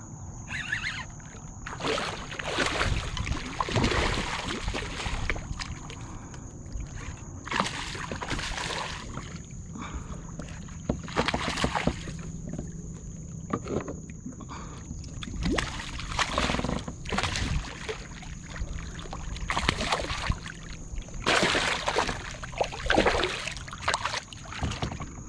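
Water splashing in repeated irregular bursts as a hooked redfish thrashes at the surface beside a kayak while it is fought in and landed.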